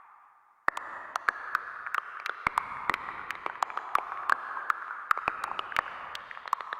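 Synthesizer sound effect: a hissing, static-like band of noise peppered with irregular sharp crackling clicks. It starts abruptly under a second in, after a brief gap, and begins to fade near the end.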